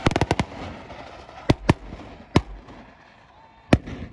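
Sharp explosive bangs: a quick run of about five right at the start, then four more spaced singly, about a second and a half in, just after that, near two and a half seconds, and near the end.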